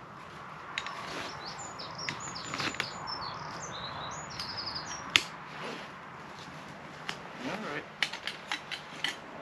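Rustling of heavy tent fabric and sharp clicks as a tent is handled during setup, the loudest click about halfway through and several more near the end. A small bird chirps a quick run of high notes from about one to five seconds in.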